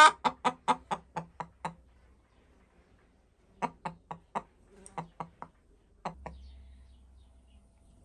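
Broody hen sitting on her eggs, clucking in quick runs of about five short clucks a second. The first cluck is the loudest; a run of about nine, a pause of about two seconds, another run, then two last clucks.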